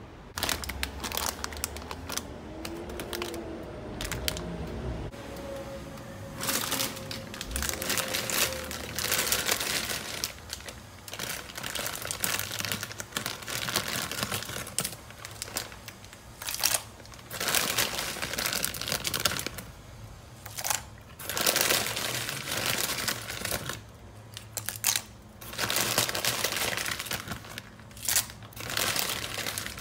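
Water in a pan on an electric hob crackling and hissing in irregular bursts as it heats toward the boil. Near the end, dry bow tie pasta is dropped into it.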